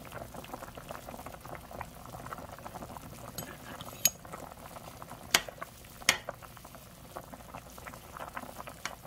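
A pot of thick spicy chicken stew bubbling at a simmer, a steady faint crackle of small pops, with a few sharp clicks around four, five and six seconds in.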